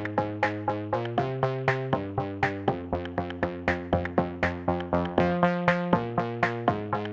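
Background music: electronic track of quick, evenly spaced plucked synth notes, about four a second, over changing chords.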